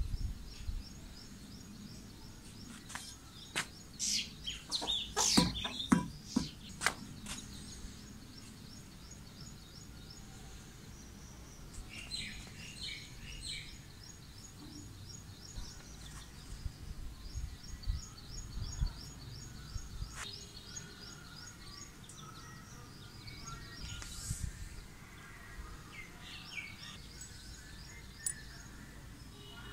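Birds chirping in quick, repeated trains of short high notes, over a steady outdoor background. A few sharp clicks and knocks stand out between about three and seven seconds in.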